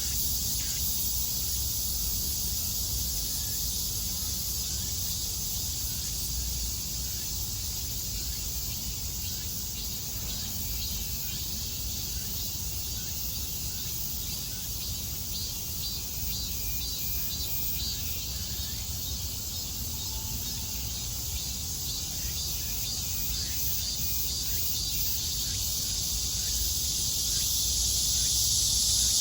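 Chorus of cicadas buzzing steadily, growing louder near the end, with short chirps about halfway through and a low rumble underneath.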